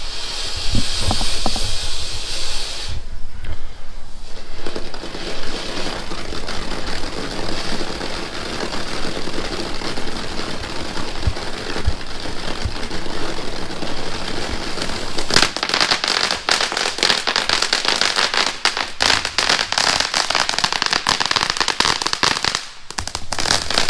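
'Purple Frost' ground fountain firework spraying sparks with a steady high hiss. About fifteen seconds in it breaks into dense, rapid crackling that goes on almost to the end.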